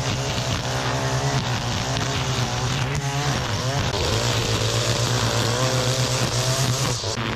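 Gas-powered string trimmer running near full throttle, cutting through tall grass and weeds, its engine pitch wavering slightly as the line meets the growth.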